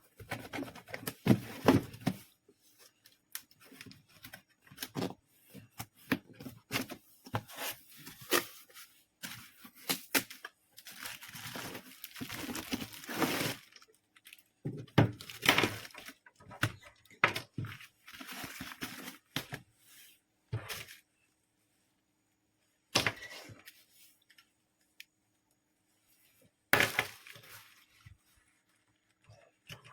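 Irregular handling noise: rustling, crinkling and knocking as objects are picked up and moved, in uneven bursts with pauses of a few seconds.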